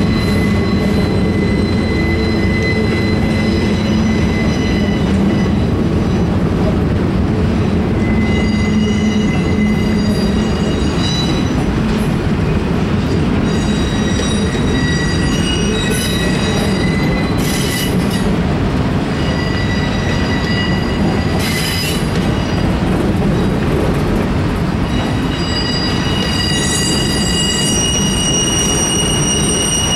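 Freight cars (autoracks and boxcars) rolling past with a steady low rumble of wheels on rail, while high-pitched wheel squeals from flanges grinding on the curve come and go, several tones at once, strongest in the second half.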